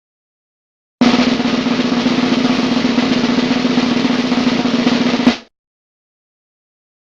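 Drum roll sound effect: a rapid roll of about four seconds that ends in a single sharp hit.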